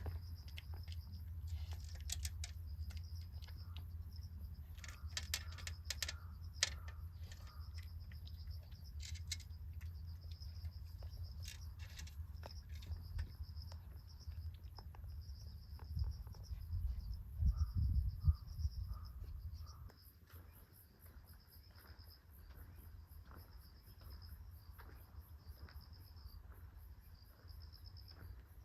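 Insects calling in a steady pulsing trill, joined by a second, faster high pulsing insect call about two-thirds of the way in. Under it there is low wind rumble on the microphone and scattered clicks for the first two-thirds, and these stop a little past the middle.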